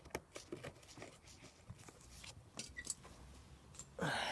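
Small metal clicks and scrapes as a pad retaining pin is worked by hand into a Renault Twizy brake caliper, against the spring-loaded pad. A short, louder rush of noise comes near the end.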